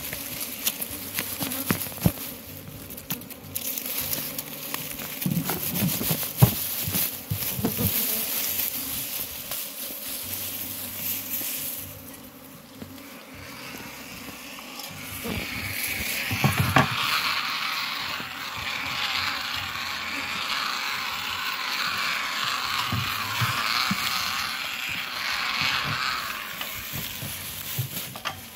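Honey bees buzzing around their exposed comb, with scattered knocks and rustles in the first half; the buzzing grows louder and denser from about halfway through.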